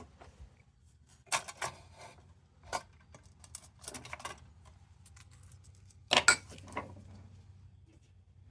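Small sheet-metal lantern parts clinking and clattering as they are handled and fitted together, in a few separate knocks and short rattles, the loudest about six seconds in.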